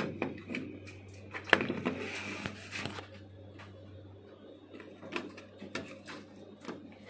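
Scattered plastic clicks and knocks from a projector lamp module's housing being handled and turned over, the loudest knock about one and a half seconds in. A low hum runs underneath and stops about four seconds in.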